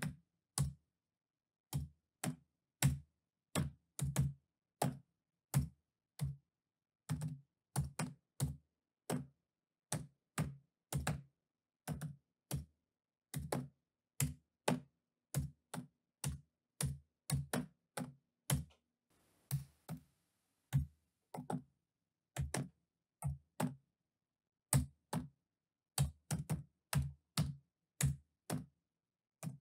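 Slow hunt-and-peck typing on a laptop keyboard: single key presses clicking one at a time at an uneven pace, about one or two a second, with a short pause near the end.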